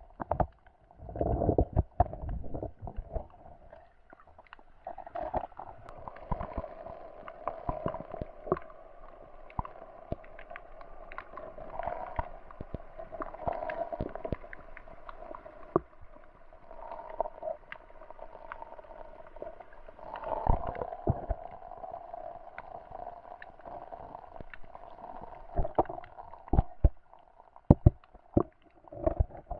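Lake water heard through an underwater camera: a muffled, steady hum with frequent sharp clicks and knocks, and a few louder low thumps near the start and end.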